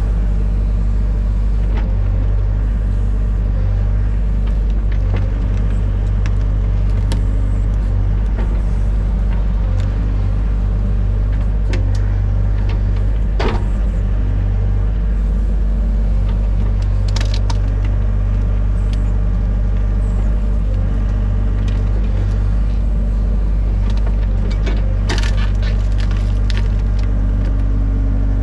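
Excavator's diesel engine running steadily under work, with scattered knocks and clanks, one sharp bang about halfway through.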